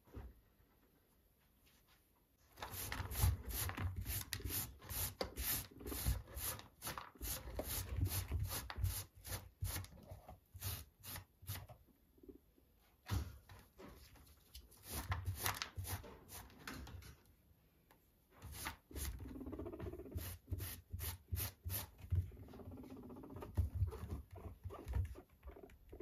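Pink plastic dustpan and hand brush sweeping hay and droppings off a guinea pig cage floor: quick, irregular brushing strokes, scrapes and rustling with light knocks, in three spells with short pauses, starting a couple of seconds in.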